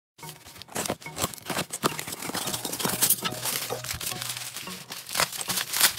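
Crinkling, rustling handling noise with many sharp clicks and crackles.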